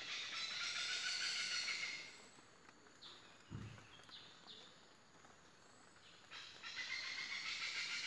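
Oriental pied hornbills calling in the rainforest canopy. A loud burst of harsh calls fills the first two seconds, then come a few short downward-sliding chirps and a soft low thud, and another loud burst of calling starts about six seconds in.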